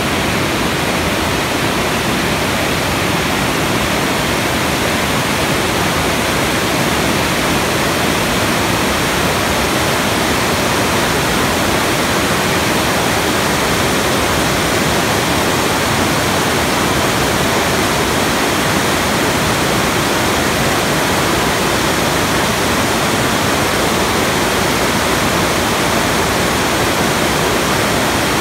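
Whitewater of a mountain river rushing over boulders: loud and steady, without a break.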